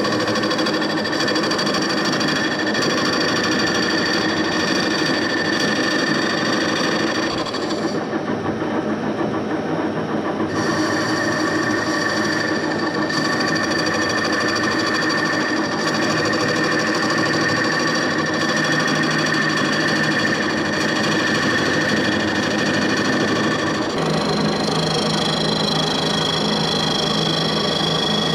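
Metal-working lathe running steadily while turning wood, a whine of several held tones over the machine's running noise. The higher tones drop out for about two and a half seconds around a third of the way in, and the note shifts near the end.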